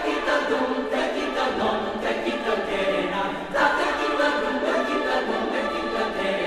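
A choir singing, several voice parts holding sustained chords that shift every second or so, with a fresh, louder entry a little past halfway.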